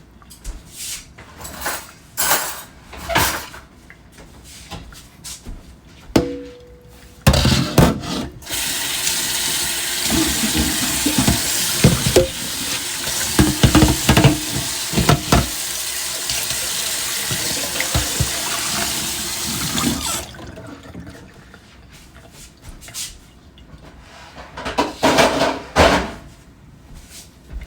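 Water tap running into a sink for about twelve seconds, with dishes clattering under it. Scattered knocks and clicks of dishes being handled come before and after the water.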